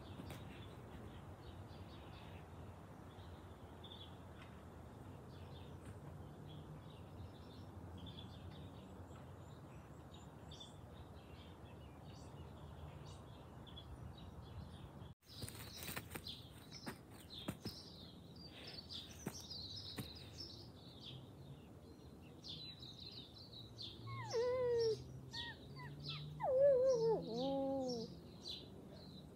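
Small garden birds chirping throughout, and near the end a few short whining calls that rise and fall in pitch: a person's voice imitating a wolf's whimper.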